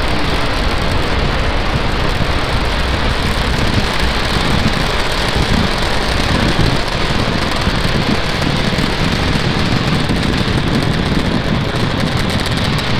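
Falcon 9 first stage's nine Merlin 1D engines firing as the rocket climbs in the first half-minute after liftoff: a loud, steady rumbling noise, heaviest in the low end.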